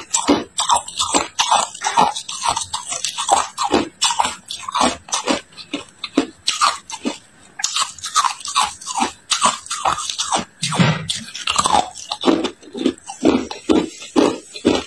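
Hard ice being bitten and chewed: a steady run of sharp crunches, about two to three a second.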